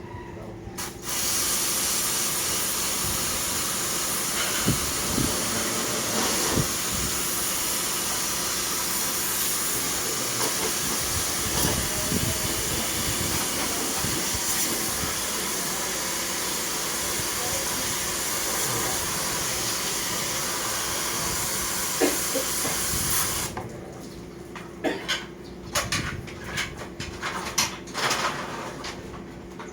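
High-pressure water spray hissing steadily as it washes an air conditioner unit. It starts abruptly about a second in and cuts off suddenly near the end, leaving light clicks and knocks.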